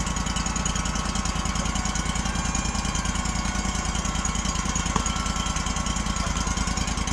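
Wood-Mizer LT35 Hydraulic portable sawmill's engine running steadily, with an even pulsing beat.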